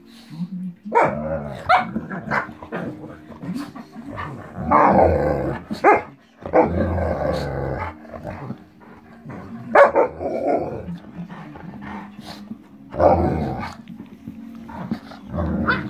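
An Alaskan Malamute and a King Charles Spaniel play-fighting, with rough growls and barks coming in bursts every few seconds.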